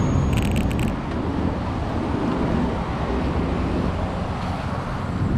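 Road traffic: cars passing on a busy avenue, an even low rumble of engine and tyre noise. A brief cluster of high clicks comes about half a second in.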